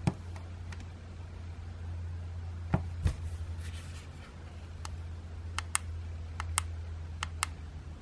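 Small plastic push-buttons of a handheld gate remote clicking as they are pressed and released, in a button sequence for cloning a FAAC XT2 868 SLH LR remote. There are a few clicks in close pairs over the last three seconds, a couple of knocks of handling a little before three seconds in, and a steady low hum underneath.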